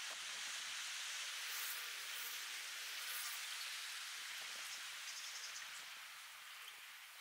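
Small waves washing gently onto a sandy shore: a soft, hissing wash that swells in the first seconds and eases off toward the end.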